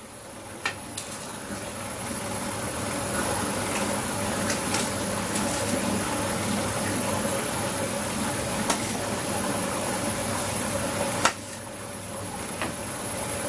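Steady rush of running water that cuts off suddenly about eleven seconds in, with a few sharp clinks of a metal ladle against aluminium stockpots.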